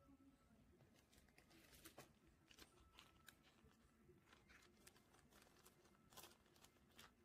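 Faint crinkling of a clear plastic photocard sleeve being handled while a card is slid into it, heard as scattered short crackles in irregular clusters.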